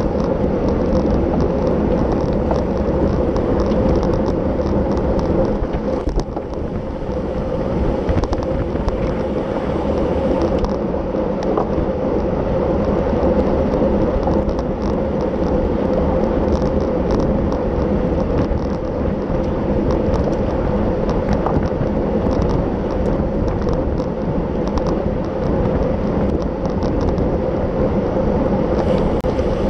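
Steady wind rush and road noise on the microphone of a camera riding on a road bicycle in motion, with many small scattered clicks and ticks over it.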